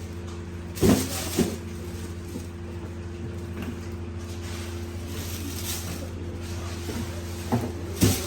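A knife chopping fish on a cutting block: two sharp knocks about a second in and two more near the end, over a steady low mechanical hum.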